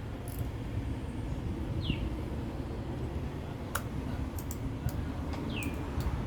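Steady low background rumble with a few scattered sharp clicks and two short, high, falling chirps.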